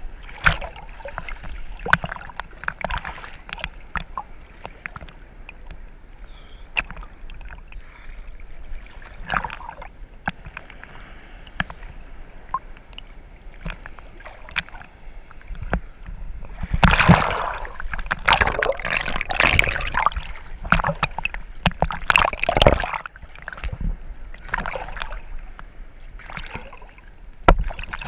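Sea water sloshing and splashing right at the microphone in small surface waves, with frequent short sharp knocks. A louder stretch of rushing splashes comes a little past the middle.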